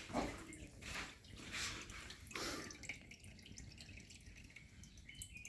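Water splashing and dripping in a few short spills over the first three seconds, then a faint trickle. The water is being run to clear the refrigerator's ice-blocked drain.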